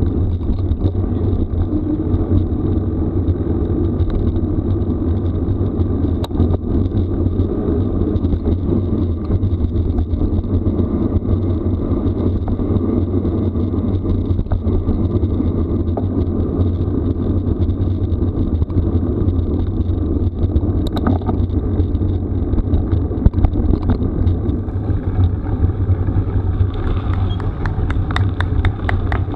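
Steady low rumble of tyres and wind while travelling over a rough gravel forest road, with scattered rattling clicks near the end.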